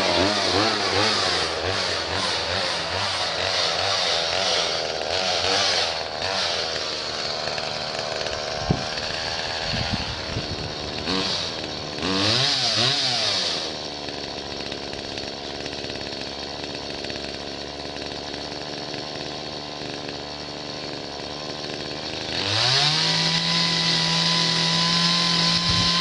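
Chainsaw engine running on a rope, its pitch wavering up and down through the first half. It settles to a steady lower speed midway, then revs up to a higher steady pitch near the end.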